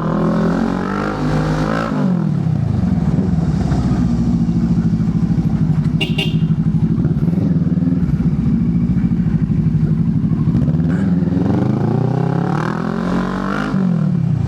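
Motorcycle engine running on the road, rising in pitch as it accelerates and dropping at a gear change, once at the start and again near the end, with steady cruising in between.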